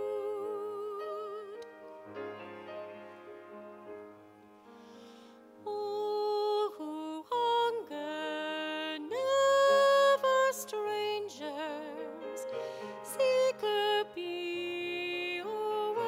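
A church hymn: a solo voice singing long held notes with strong vibrato over sustained instrumental accompaniment. The music falls quiet briefly about four to five seconds in, then a new, louder phrase begins.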